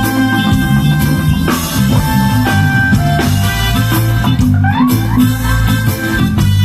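Live reggae band playing an instrumental passage with no vocals: a heavy bass line, drum kit and guitar, with a few sliding notes about four and a half seconds in.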